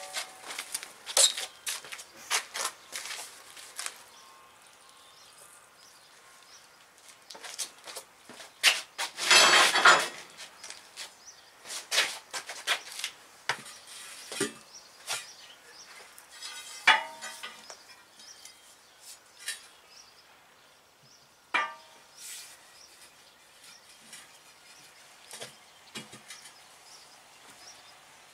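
Steel tire irons knocking, clanking and scraping against a steel truck wheel rim as a truck tire is levered onto it by hand. There are scattered sharp knocks, a few of them ringing briefly like struck metal, and a louder, longer burst of noise about ten seconds in.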